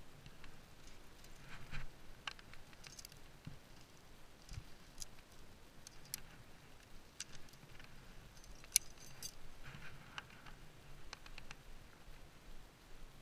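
Sporadic light clinks of metal climbing gear (carabiners, cams and nuts racked on a harness) jostling as the climber moves, with a few soft knocks and scuffs against the rock.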